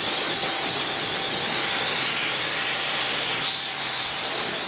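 Pressure washer spraying a jet of water against the side of a glider trailer: a steady hiss.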